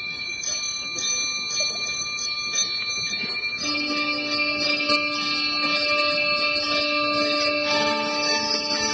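Indoor drumline front ensemble opening on mallet keyboards: bell-like notes struck about twice a second over a ringing held chord, with lower sustained notes joining about three and a half seconds in and again near the end, the sound building steadily louder.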